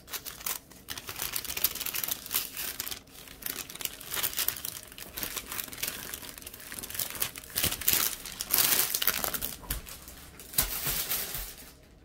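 Plastic crinkling and rustling as loose diamond-painting drills are put away, in irregular bursts that grow louder several times and stop near the end.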